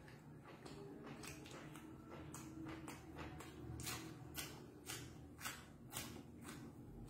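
Close mouth sounds of a person eating by hand: wet lip smacks and chewing clicks, irregular, about one or two a second, sharpest in the second half.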